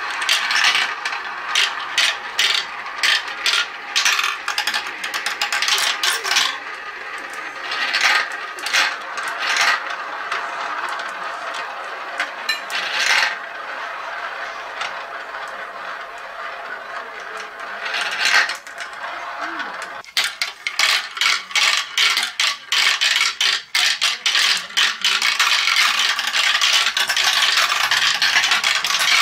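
Glass marbles rolling round the plastic funnels of a Galt marble run: a steady rolling whir broken by sharp clicks as marbles knock together and drop through the funnel holes. From about twenty seconds in, a dense, rapid clatter of marbles running down plastic track.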